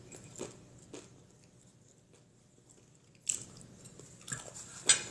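A person eating close to the microphone: a few soft mouth clicks, a short near-quiet stretch, then a sharp bite and more chewing sounds near the end.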